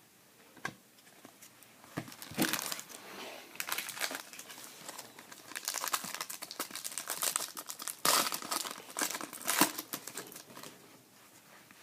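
Foil trading-card pack wrapper crinkling and being torn open, in irregular bursts from about two seconds in until near the end, after a single click near the start.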